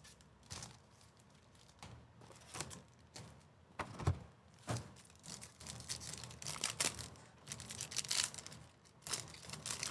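Foil card-pack wrappers crinkling as packs are handled and one is torn open, with a few short light knocks of packs and box cardboard.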